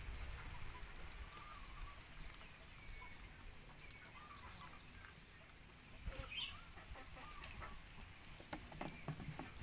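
Faint, scattered short chirping and clucking animal calls over a quiet outdoor background, with a few soft clicks near the end.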